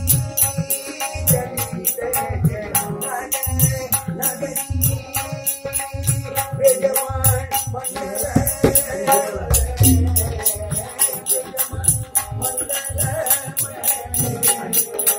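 Classical Kumauni Holi song: a male voice singing over a harmonium, with a drum and rattling hand percussion keeping a steady beat of several strikes a second.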